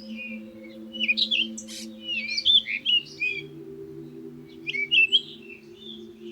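Small birds chirping in quick, twittering phrases, in three bursts about a second or two apart, over a steady low drone of background music.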